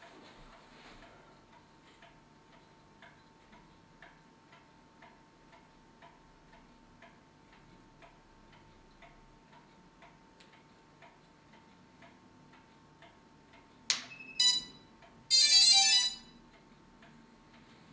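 Pendulum wall clock ticking faintly, about twice a second. About fourteen seconds in, a sharp click as the DJI F550 hexacopter's flight battery is connected, followed by its electronic start-up beeps, a short loud run of tones.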